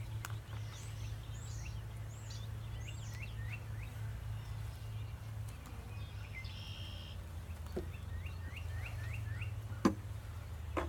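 A bird chirping in repeated short hooked calls, in two quick runs, over a steady low hum, with a sharp knock near the end.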